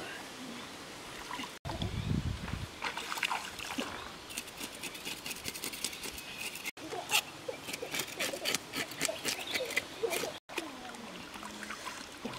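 Shallow stream water splashing and trickling as hands scrub and rinse something in it, with many short irregular splashes. A dull low thump comes about two seconds in.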